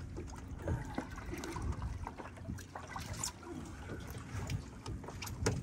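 Seawater sloshing and splashing as a plastic bucket is dipped over the side of a boat and hauled up full, with water trickling off it.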